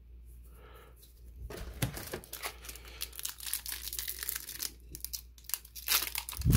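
Foil-lined trading card booster pack being crinkled and torn open by hand, crackling plastic wrapper. The crinkling starts about a second and a half in and is loudest near the end, as the wrapper rips open.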